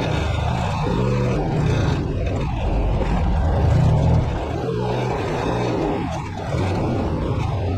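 Truck engine running with a steady low hum, swelling briefly about four seconds in.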